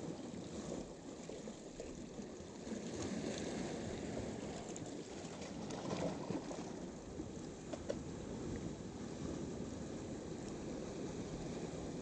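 Small sea waves washing in over rock ledges and swirling between boulders, a steady rushing wash that swells louder a couple of times.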